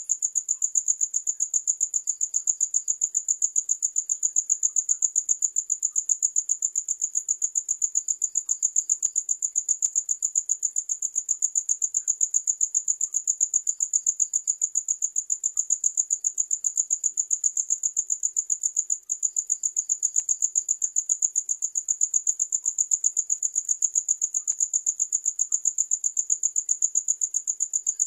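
Cricket chirping in a fast, even run of high-pitched pulses, with one brief break about nineteen seconds in. Fainter, lower chirps come in every few seconds.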